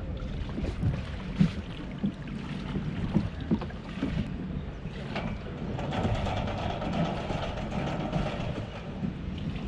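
Small skiff under way: a Mercury 6 hp outboard running steadily, with water knocking against the hull and wind on the microphone. The motor's whine grows stronger about six seconds in.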